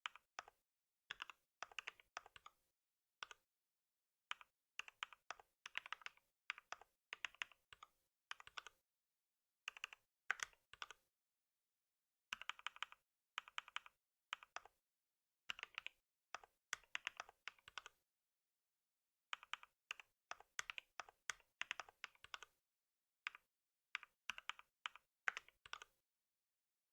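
Typing on a computer keyboard: quick runs of keystrokes broken by short pauses, with dead silence between the runs.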